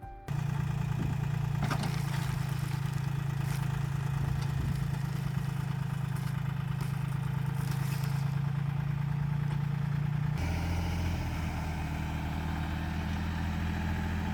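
Utility tractor engine running at a steady speed, then dropping to a lower steady speed about ten seconds in, with a few light clanks.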